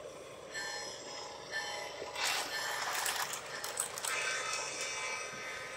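O gauge Lionel model freight train running past on three-rail track, its wheels and motor making a steady running noise with a few brief louder surges.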